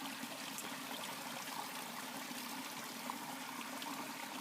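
Steady hiss of running water, even throughout, with a few faint ticks.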